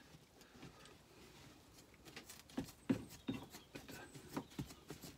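Scissors cutting through carpet underlay: after a faint start, a run of irregular short snipping crunches begins about two seconds in.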